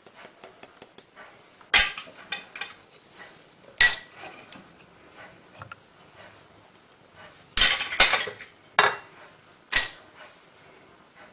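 Ceramic spoons clinking against a ceramic plate and being set down as spices are tipped into flour: a handful of sharp clinks, with a loud one about two seconds in, another about four seconds in, and a cluster near the end.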